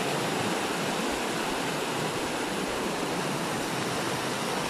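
Muddy floodwater rushing steadily in a torrent down a channel cut through fresh landslide debris.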